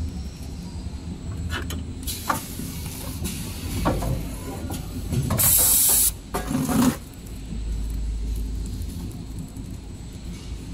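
XY-GU-27B two-head napkin packing machine running with a steady low hum, its pneumatic cylinders releasing hisses of air, the loudest about five and a half seconds in, with a few clicks from the mechanism.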